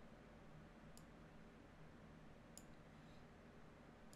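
Two faint computer mouse clicks, about a second and a half apart, over a low steady room hum.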